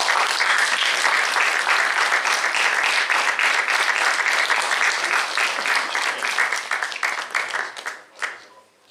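Audience applauding: dense clapping from many hands that thins to a few scattered claps and stops about eight seconds in.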